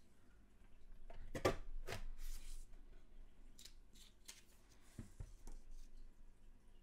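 We R Memory Keepers Square Punch Board's punch pressed down and cutting through paper, a sharp cutting noise loudest about a second and a half in, then paper rustling as the punched square is pulled out, and two low knocks about five seconds in.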